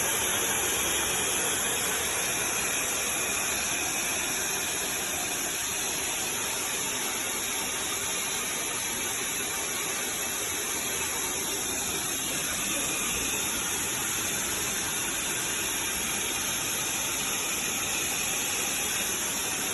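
Bestway SaluSpa spa pump unit running in inflation mode, blowing air through the hose into the inflatable hot tub: a steady, loud rush of air and motor noise with a strong hiss.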